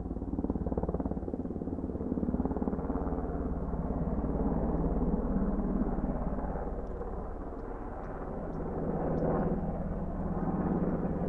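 An engine runs steadily throughout with a rapid pulsing drone, its sound mostly low and mid-pitched.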